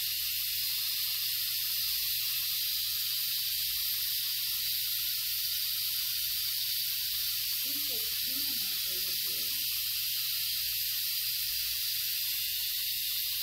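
Steady hiss over a low hum, unchanging throughout, with a brief faint voice about eight seconds in.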